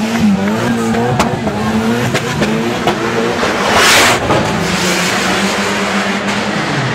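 Car engines revving and echoing inside a road tunnel, with several sharp pops in the first few seconds. About four seconds in, a car accelerates hard past at close range with a loud rush of noise.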